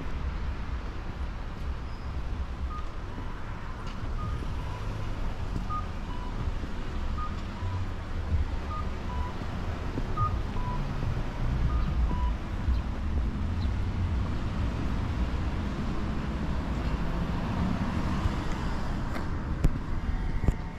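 A faint electronic two-tone chime, a higher note then a lower one, repeating about every one and a half seconds, seven times, over a steady low outdoor vehicle rumble. The rumble grows louder near the end.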